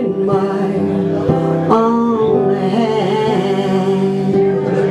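Live music: acoustic guitar with singing, long notes held and sustained, one bending up a little before two seconds in and one wavering about three seconds in.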